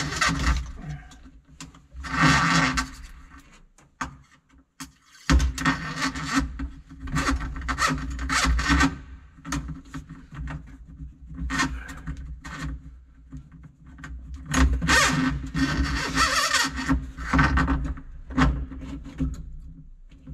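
Scraping and rubbing in irregular bursts as a control cable and its fittings are worked loose behind a Tucker Sno-Cat's dashboard, over a steady low hum that drops out for about a second around four seconds in.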